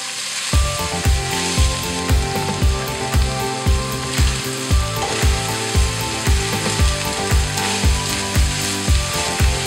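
Minced beef with chopped onion and peppers sizzling in a frying pan as it is stirred with a wooden spoon. Background music with a steady beat of about two thumps a second comes in about half a second in and is the loudest sound over the frying.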